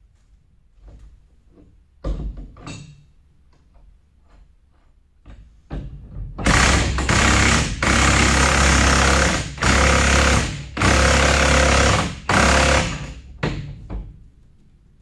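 Impact wrench hammering in five bursts of about a second each. Several seconds of scattered clinks and clicks of hand tools on metal come before it.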